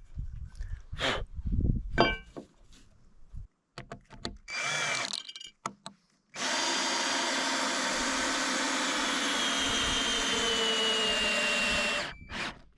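A few knocks, then a power drill runs in a short burst and then steadily for about five and a half seconds, its whine slowly dropping in pitch before it stops suddenly near the end.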